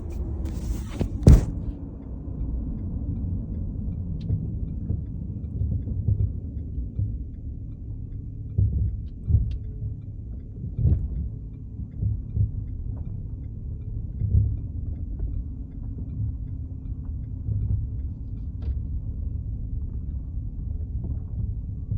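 2012 Lincoln MKZ moving slowly, a steady low rumble with irregular thumps and a few faint short creaks, the wheel creaking it makes when pulling in and out of driveways. A sharp knock about a second in.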